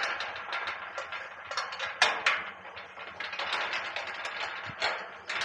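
Metal bar gate being unlocked and pulled open: its bolt and lock rattle and clank in quick irregular clicks and scrapes, with one sharp clank about two seconds in.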